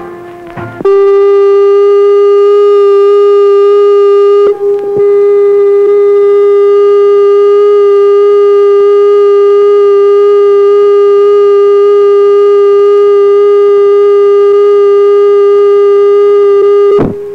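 A loud, steady tone held on one unchanging pitch, starting just under a second in, with a brief break about four seconds in and a sudden stop near the end.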